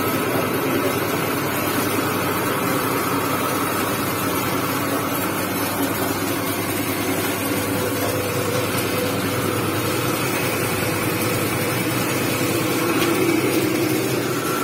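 Grinder-mixer machine running steadily while it grinds washing powder, a constant loud mechanical drone with a faint hum, swelling slightly near the end.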